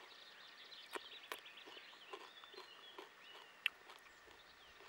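Faint birdsong, small birds chirping, with a few sharp crisp clicks, the loudest about three and a half seconds in.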